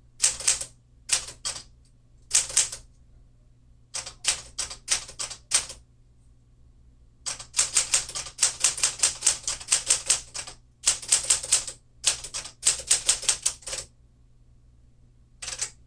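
1952 Smith-Corona Clipper manual typewriter being typed on: short bursts of sharp key strikes with pauses between them, and a long fast run of strikes from about seven seconds in to about fourteen seconds in.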